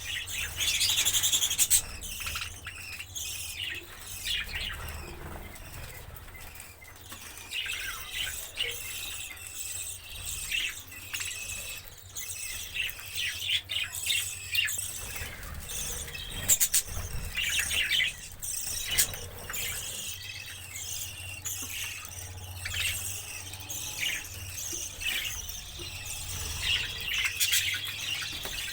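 Small pet parrots chirping and squealing, many short high-pitched calls overlapping one another, with a louder flurry in the first two seconds.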